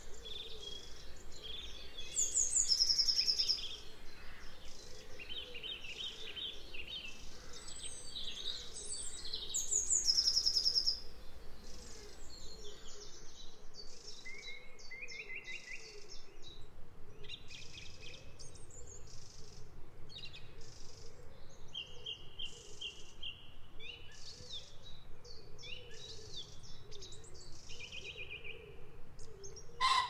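Several songbirds singing in spring woodland: overlapping chirps and quick trilled phrases, with one bird's louder, high song phrase coming twice, about three and ten seconds in. A faint steady background noise lies underneath.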